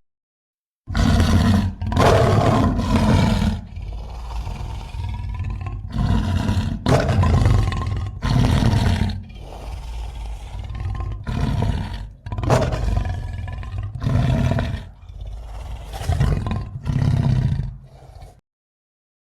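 Monster roar sound effect layered from animal roars, such as lion, bear, gorilla and elephant. It is a series of deep roars and growls, some short and loud, some longer and lower. They start about a second in and stop abruptly near the end.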